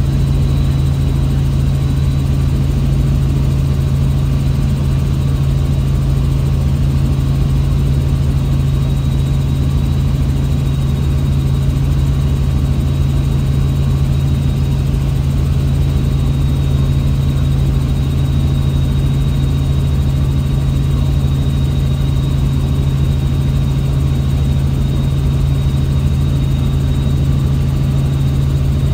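Helicopter in flight: a loud, steady engine and rotor drone with a thin high whine held throughout.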